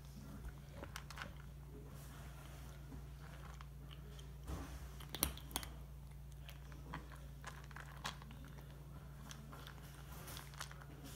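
A kitten crunching dry kibble: small irregular crunches and clicks as it chews, with a few louder ones about halfway through, over a steady low hum.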